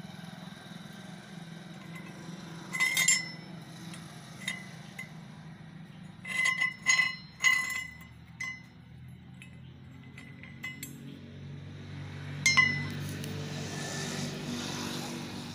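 Steel bolt and nut clinking and ringing against a rebar wrench jig and a metal plate as the bolt is worked loose and set down. There are two clinks about three seconds in, a cluster of several around six to eight seconds, and a last one near the end, over a steady low hum.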